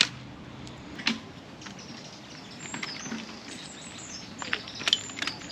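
Scattered knocks and clicks of fishing gear being handled and unloaded, over a steady outdoor hiss. Small birds chirp high-pitched in the background, more often in the second half.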